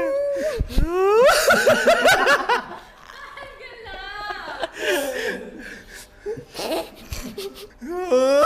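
Several young men laughing hard together in repeated bursts, loudest and most overlapping for a second or so soon after the start, then dying down to quieter bursts of laughter.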